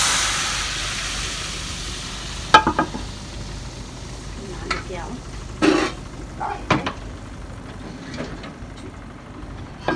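A tarka of hot oil with fried garlic, whole red chillies and cumin hitting a pot of cooked daal, sizzling loudly and dying away over the first two or three seconds. After it come a few separate clanks of the frying pan and cookware being handled.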